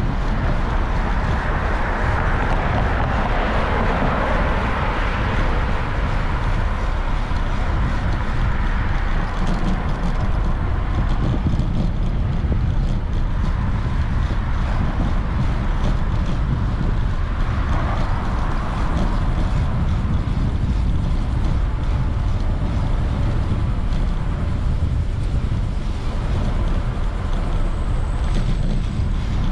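Street traffic heard from a moving bicycle: cars passing, one swelling about two seconds in and another a little past halfway, over a steady low rumble of wind on the microphone.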